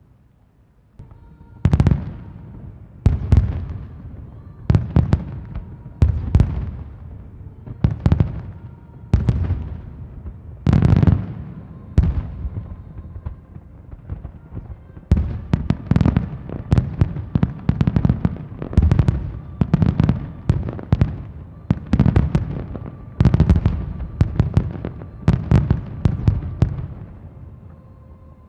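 Aerial fireworks shells bursting in a long barrage: sharp bangs about a second apart, each trailing off in a rumble, coming faster and overlapping in the second half.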